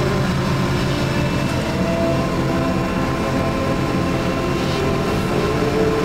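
Diesel engine of a Caterpillar mining haul truck running, heard from inside the cab as the truck drives: a steady, loud low drone.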